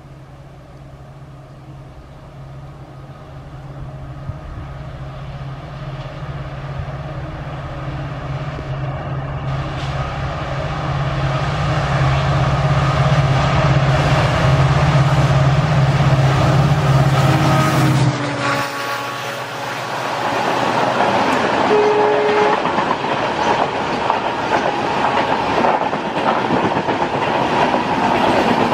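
EMD WDP-4D diesel-electric locomotive approaching at speed, its two-stroke V16 engine giving a steady low drone that grows steadily louder. About eighteen seconds in the drone stops abruptly and the passenger coaches take over, running past with a loud rush and rapid wheel clatter.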